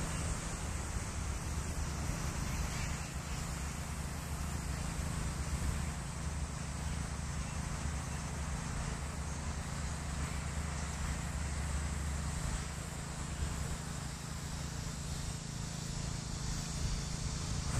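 Steady wind rumbling on the microphone over an even outdoor hiss.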